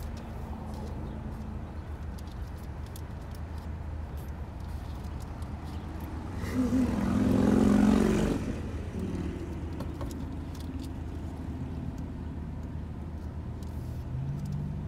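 Car engine idling, heard from inside the cabin as a steady low hum. A louder rumble swells and fades about six to eight seconds in.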